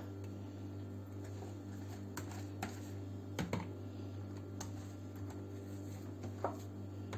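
A metal spoon scooping a runny oil-and-yogurt sauce from a bowl and spooning it onto a sheet of yufka, making scattered light clicks and taps, the strongest about halfway through. A steady low hum runs underneath.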